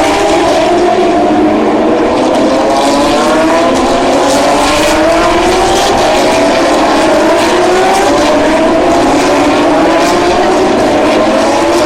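Porsche 911 GT3 Cup race cars' flat-six engines accelerating, several at once, their pitches rising in repeated overlapping sweeps as they run up through the gears. Loud and continuous.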